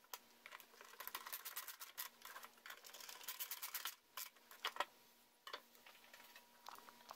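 Hand screwdriver driving a wood screw into a hardwood clock frame: a quick run of small clicks for about three seconds, then a few separate knocks.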